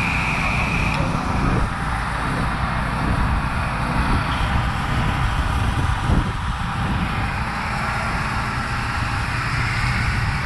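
Pressure washer running steadily: a continuous engine drone under a broad hiss of spraying water. A high steady whine cuts out about a second in.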